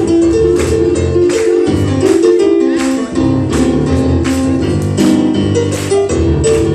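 Boogie-woogie piano played on a Yamaha digital keyboard: a busy, rolling left-hand bass under repeated right-hand chords.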